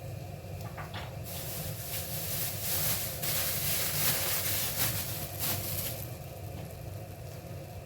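Soya beans frying in a pan with curry leaves and green chili, sizzling louder from about a second in for several seconds, over a steady low hum.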